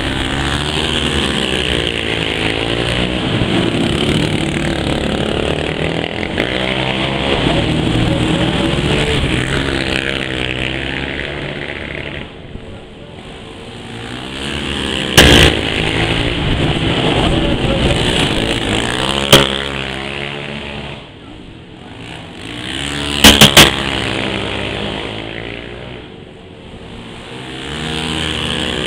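Small off-road engines of quad ATVs revving and running, pitch climbing and falling as throttles are blipped, the sound swelling and fading as machines move about. A sharp crack cuts through about halfway, another a few seconds later, and a quick burst of three about two-thirds of the way in.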